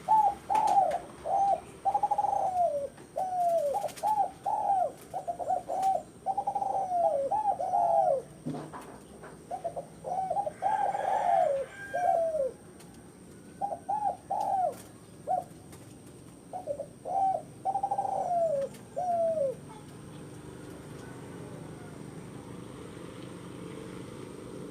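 Zebra dove (perkutut) cooing: runs of short, quick coos, many sliding down in pitch, with brief pauses between runs. It falls silent about 20 seconds in.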